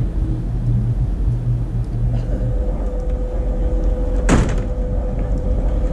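Railway locomotive running with a steady low rumble and hum, its tone shifting higher about halfway through, and a single sharp bang a little over four seconds in.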